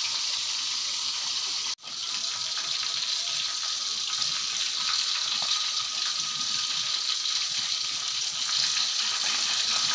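Hot oil sizzling steadily in a wok as whole ikan lema fish fry, cutting out briefly about two seconds in.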